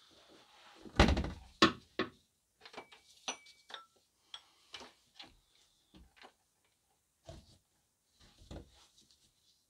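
Ratcheting digital torque wrench working the new drive-belt tensioner's bolt toward 48 N·m in a cramped space: irregular ratchet clicks and metal knocks, the loudest knock about a second in. There are a few short high beeps about three seconds in.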